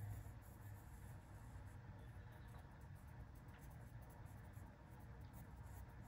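Faint scratching of a pencil sketching on sketchbook paper.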